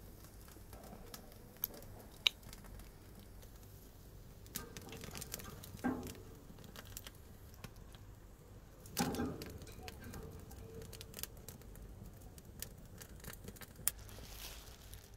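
Dry twigs and sticks burning in a barbecue grill, crackling with scattered sharp pops. There are two brief, louder, muffled bursts, about six and nine seconds in.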